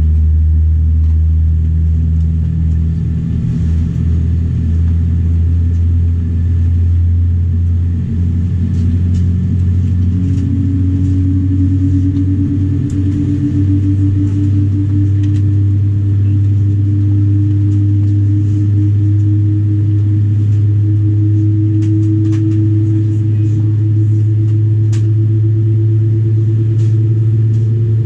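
Steady low cabin hum inside a Boeing 787-9 on the ground. About ten seconds in, a whine joins it and rises slowly and steadily in pitch.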